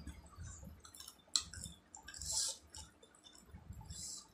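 Close-miked eating sounds from a mouthful of rice eaten by hand: wet chewing with sharp mouth clicks and smacks, a loud click about a second and a half in, and longer wet squishing sounds around the middle and near the end.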